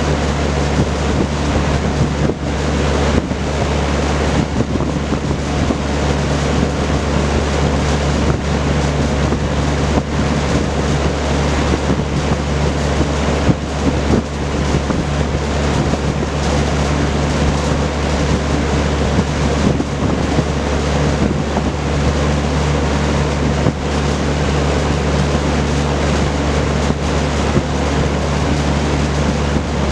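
Vintage Kenmore Roll-A-Matic 20-inch reversible box fan with a four-blade propeller running steadily: a loud, even rush of moving air over a low, steady motor hum.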